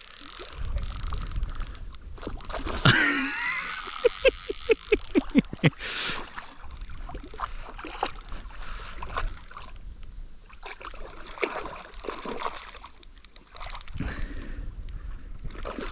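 Water splashing and sloshing as a dog paddles and lunges after a hooked carp in the shallows, with scattered short clicks.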